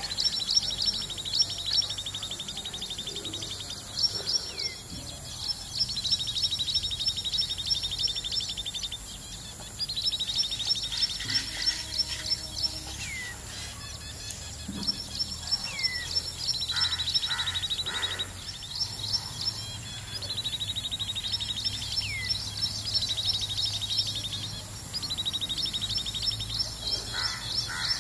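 Common babbler singing: a repeated phrase of quick high notes running into a trill, with short down-slurred notes between phrases, a new phrase every two to three seconds.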